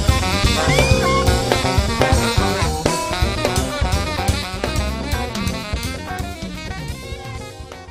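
Instrumental band music with a drum kit keeping a steady beat under bass and melody, fading out gradually toward the end.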